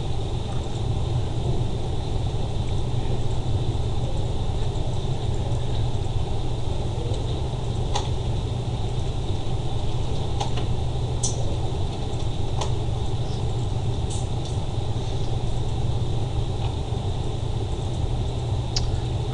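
Steady low rumbling noise with a few faint clicks scattered through it.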